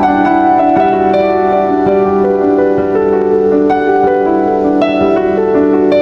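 Background piano music: single notes and chords struck one after another and left to ring.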